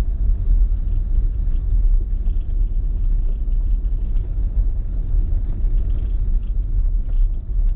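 Audi Q5 driving on a rough gravel track, heard from inside the cabin: a steady low rumble of the tyres and suspension over the loose, broken surface.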